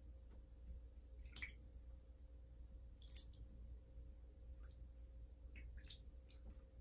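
Faint small splashes and drips from a cat's paws dabbing and stepping in shallow bathtub water, about six short ones spread over several seconds.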